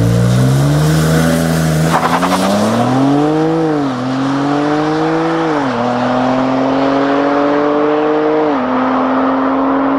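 BMW X3 M Competition's twin-turbo 3.0-litre inline-six accelerating hard through the gears. The revs climb and drop back at each upshift, about four times, with a brief crackle from the exhaust about two seconds in.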